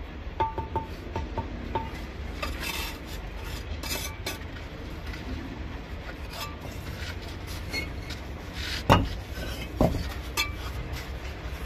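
Bricklaying with a steel trowel: a few light ringing clinks of the trowel on brick, scraping of mortar, and two heavier knocks about two-thirds of the way through.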